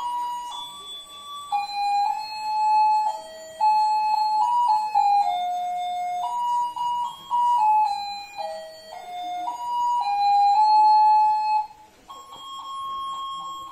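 A simple electronic tune played one note at a time: a single melody line of clean, beeping notes with no accompaniment. It breaks off briefly near the end, then carries on.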